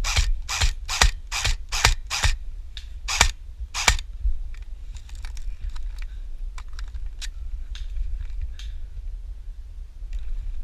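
Airsoft gun firing single shots as sharp snaps: a quick run of about seven, two to three a second, then two more about a second apart. Fainter clicks follow in the second half.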